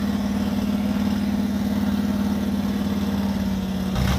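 A car engine held at steady revs, a constant drone. About four seconds in, a deeper rumble joins it.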